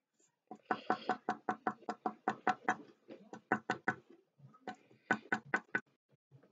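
A felt-tip pen dabbed rapidly onto paper on a table to make dots, at about six quick taps a second. The tapping pauses briefly about four seconds in, then comes in another short run.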